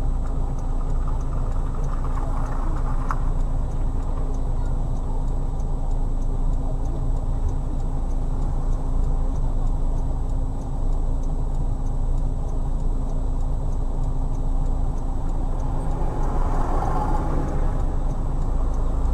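Car on the road, heard from inside through a dash cam: a steady low rumble of engine and road noise with a faint regular ticking. A swell of noise rises near the end.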